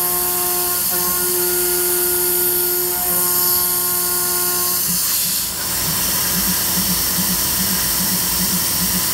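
DIY CNC router spindle milling an aluminium plate, with a steady high hiss throughout. A steady whine with overtones runs for about the first five seconds, then stops and gives way to a low hum pulsing two or three times a second.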